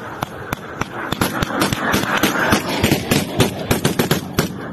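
Rifle fire: many shots in quick, irregular succession, some louder and some fainter, over a steady rushing noise.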